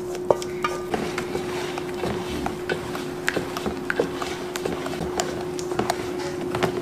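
A spatula and bowl clinking and tapping against a large stainless steel mixing bowl as melted chocolate is poured into cake batter and stirred in, with scattered light taps throughout and the sharpest knock near the start. A steady hum runs underneath.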